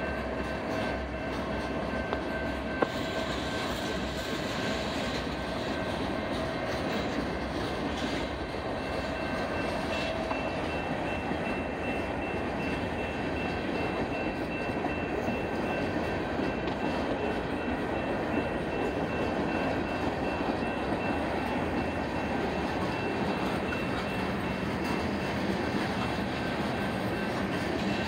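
Freight train cars rolling past: a steady rumble and clatter of steel wheels on rail, with thin steady whining tones above it and a single sharp knock about three seconds in.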